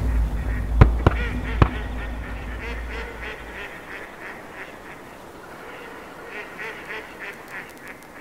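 Ducks quacking in a long rapid series, several quacks a second, growing fainter. A few sharp cracks sound in the first two seconds over a low rumble that dies away.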